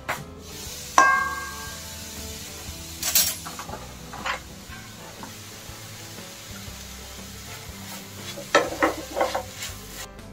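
A glass lid is taken off a frying pan with a ringing clink about a second in. Then a spatula knocks and scrapes in the pan as the greens are stirred, with a cluster of quick knocks near the end. Music plays faintly behind.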